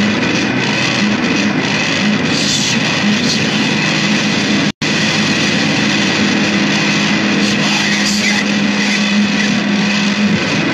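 Loud, dense noise music: a distorted wall of sound with a low steady drone, cut by a split-second dropout to silence a little under five seconds in.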